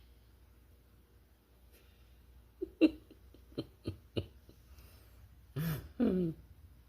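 Dog snoring: a quick run of four short, sharp snorts, the first the loudest, then two longer sounds that fall in pitch near the end.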